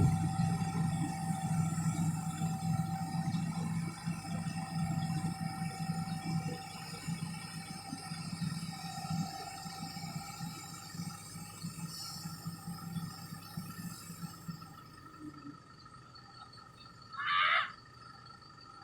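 A low engine hum slowly fading away over about fifteen seconds, with faint steady high-pitched tones underneath. A brief, louder squeak-like sound comes near the end.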